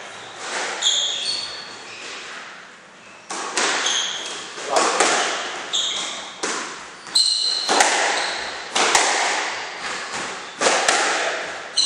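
Squash rally: the ball cracking off the rackets and the court walls in quick succession, each hit ringing in the court, with short high squeaks of court shoes on the wooden floor. The hits start about three seconds in and come roughly once a second.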